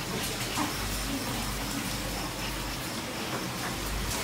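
Steady rain, an even hiss with no distinct drops or knocks.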